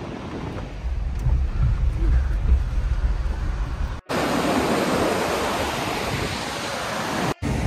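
Low rumble of a Mahindra Thar 4x4 driving over a gravel track, heard from inside the cabin. About four seconds in there is an abrupt cut to a fast mountain river rushing loudly over rocks, which is the loudest sound here.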